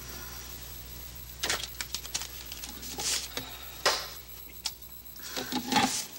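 Lacquered bowls, lids and chopsticks clicking and knocking against meal trays in scattered, separate taps, over a low steady hum that fades out about two-thirds of the way through.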